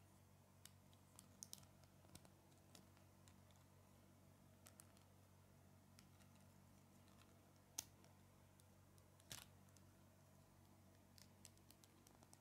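Faint, scattered clicks of small Lego plastic pieces being handled and pressed together, with one sharper click about two-thirds of the way through, over a low steady hum.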